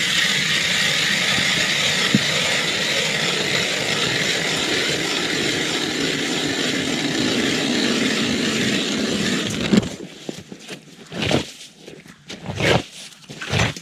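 Ice auger boring out a hole refrozen under about three inches of new ice: a steady grinding scrape of the blades cutting ice that stops abruptly about ten seconds in, followed by a few short knocks and scrapes.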